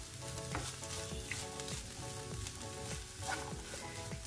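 Cooked chickpeas and coconut masala sizzling in a nonstick frying pan as a spatula stirs them, with light taps and scrapes of the spatula against the pan.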